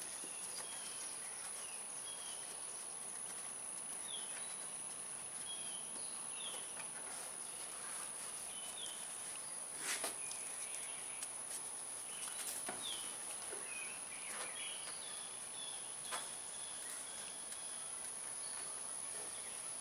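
Faint background: short, falling bird chirps every second or two over a steady high-pitched whine, with a few soft clicks and knocks of handling about halfway through and later on.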